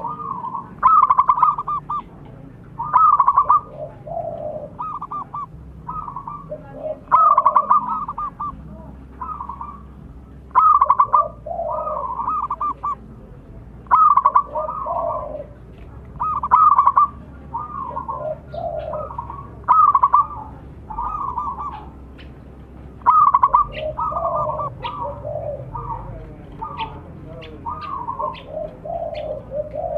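Zebra dove (perkutut) cooing: its rhythmic, trilling coo phrase repeats every three to four seconds, with quieter coos in between.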